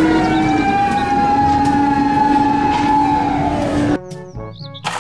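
Fire rescue truck siren wailing, a held tone that slides down in pitch just before it cuts off about four seconds in. Light background music takes over.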